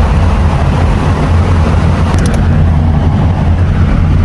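Steady road and engine noise inside a moving car, with a heavy low rumble.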